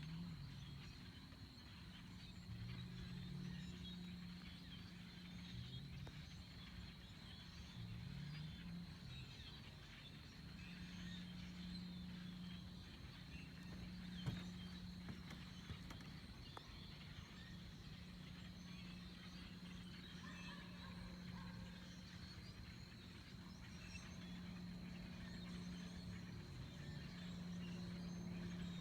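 Faint scattered chirps of small birds in trees, over a low steady hum whose pitch wavers now and then. A single sharp click about halfway through.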